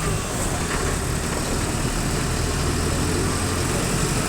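Mercedes-Benz OF-1722M bus's diesel engine running steadily at low revs, a low even drone, with a faint whistle falling in pitch in the first second.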